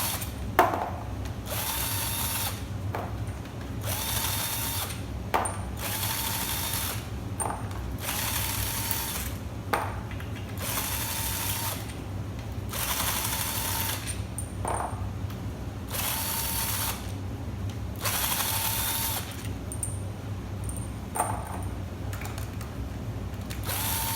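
A cordless power tool spinning out the valve body bolts of a Ford 4R75E automatic transmission, in about nine short runs of a second or so each, with a steady whine in each run. A few sharp clicks fall in the pauses between runs.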